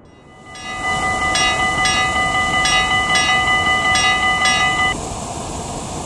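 Railroad crossing warning sounds: a bell-like ding repeating about twice a second over a steady chord of several tones. Both stop about five seconds in. Under them a loud, steady rushing roar swells up in the first second and carries on.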